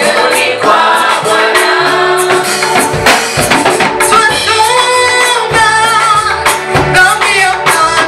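Choir singing a gospel song in several voices, over a steady beat of percussion.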